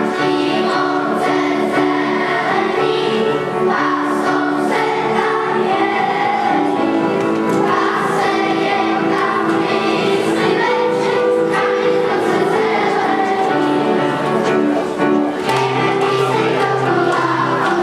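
A children's choir singing a Czech camp song, accompanied by piano chords played in a steady repeating rhythm.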